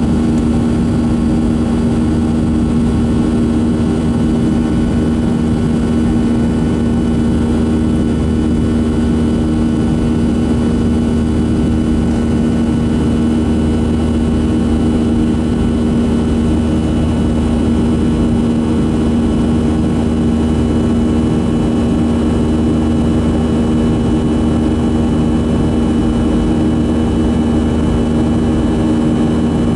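Boeing 737-500's CFM56 turbofan engines during the climb after takeoff, heard from inside the cabin over the wing: a steady drone with several even humming tones over it.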